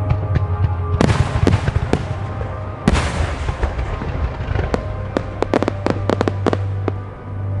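Starmine fireworks barrage: two big shell bursts, about a second in and near three seconds, then a quick string of sharp cracks, with music playing underneath.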